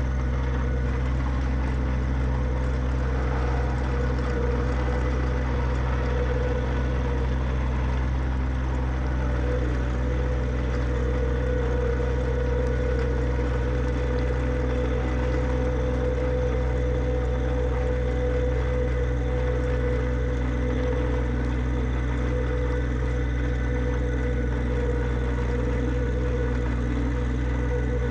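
John Deere 1025R subcompact tractor's three-cylinder diesel engine running at a steady speed, with a steady higher whine over the engine note.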